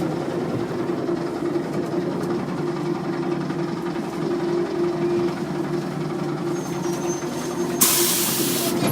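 Trolleybus running, its electric traction motor giving a steady hum over the ride noise. About eight seconds in comes a short, loud burst of hissing air, like a pneumatic brake or door releasing.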